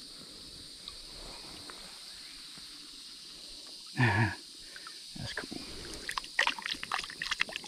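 Hands splashing and sloshing in shallow creek water, with many quick splashes and drips from about five seconds in. About four seconds in there is one short, loud exclamation from a person.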